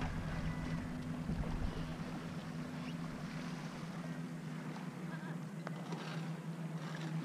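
Lakeshore ambience: light wind on the microphone over a steady low hum, with a few faint ticks.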